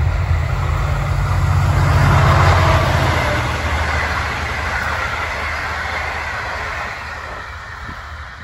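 V/Line passenger train passing close at speed: a loud rumble and rush of wheels on rail that peaks a couple of seconds in, then slowly fades as the train draws away.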